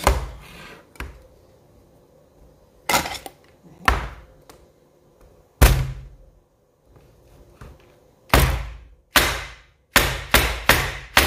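Screwdriver being jabbed down into the top of a small cylindrical coin bank to force it open: sharp knocks, a few seconds apart at first, then a quicker run of them near the end. The lid is hard and resisting.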